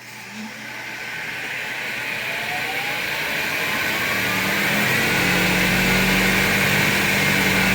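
Monarch 10EE lathe's DC spindle motor and belt drive starting up, spinning up over about five seconds with a rising whine, then running steadily at speed.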